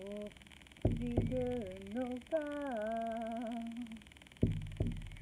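A frame drum struck with a beater, four deep beats in two pairs. Between the pairs a woman's voice hums a slow wordless melody in long held notes that step up and down in pitch.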